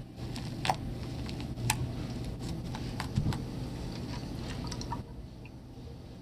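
Wet slime, thinned with hot water and lotion, being squeezed and kneaded by hand: soft squelching with small sharp pops and clicks, dying down about five seconds in.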